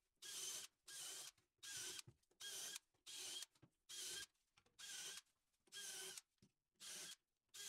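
Drill turning a countersink bit, heard as faint short spurts of motor whine, about ten of them at an even pace of a little more than one a second, with dead silence between.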